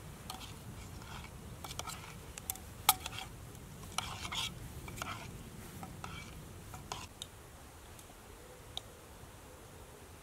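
A spoon stirring porridge oats mixed with water and powdered milk in a stainless steel pot: irregular clinks and scrapes against the metal sides. The stirring stops about seven seconds in.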